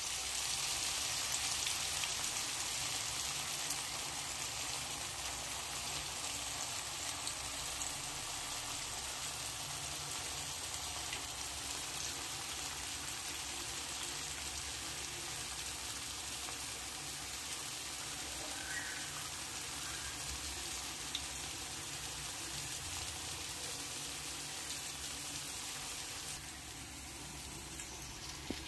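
Oil sizzling steadily around masala-coated eggplant slices shallow-frying in a pan, a little quieter near the end.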